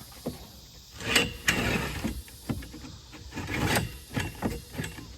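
Rustling and scraping with a run of light knocks and clicks. Two louder scraping bursts come about a second in and again near four seconds.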